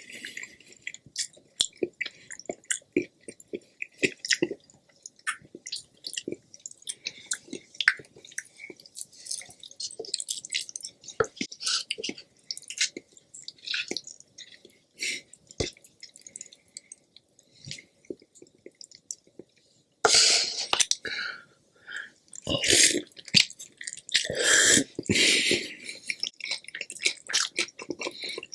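Close-miked mouth sounds of a person eating: steady chewing with many small wet clicks and smacks, and louder, longer bites from about two-thirds of the way in.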